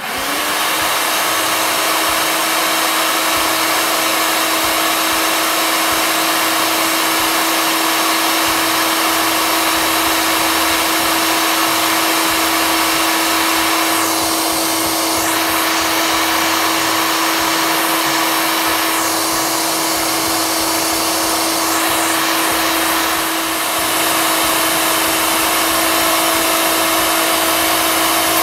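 Electric food processor motor running steadily, its blade spinning garlic while oil is drizzled in slowly to emulsify it into toum garlic sauce.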